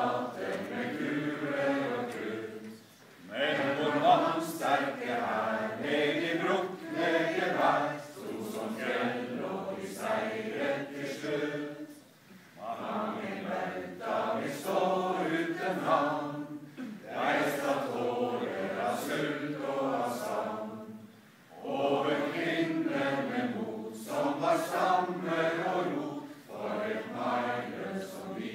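A large group of people singing together in phrases of about four seconds, with short breaks between them.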